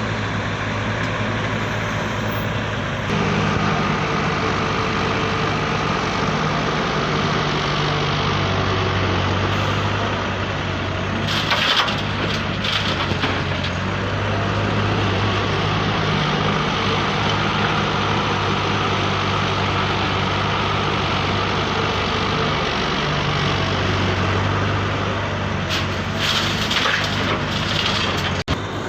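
Radio-controlled toy excavator at work: a steady mechanical hum that gets louder about three seconds in, with short bursts of scraping and crunching about eleven seconds in and again near the end.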